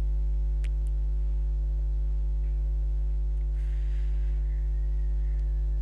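Steady low electrical mains hum with its evenly spaced overtones, running under the microphone without a break, with one faint click about two-thirds of a second in.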